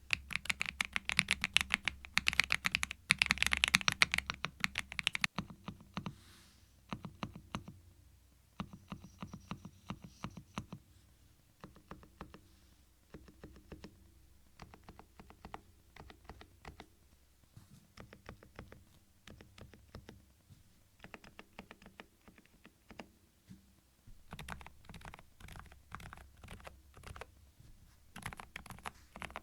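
Typing on a Thinkway TV88 tenkeyless mechanical keyboard, a rapid clatter of keystrokes. The strokes are loud and fast for about the first five seconds, then softer and more spaced out, and they pick up again near the end.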